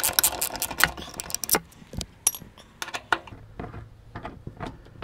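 Socket wrench on a long extension backing out a fairing bolt: a quick flurry of metal clicks and rattles for about the first second and a half, then scattered single clicks.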